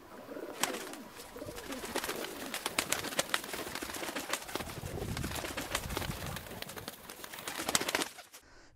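A flock of pigeons cooing, with many sharp clicks and taps scattered among the calls.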